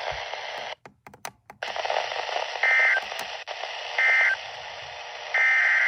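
NOAA Weather Radio broadcast hiss cuts out for about a second with a few clicks. Then three short buzzy data-tone bursts sound, a little over a second apart: the SAME end-of-message code that closes the tornado warning broadcast.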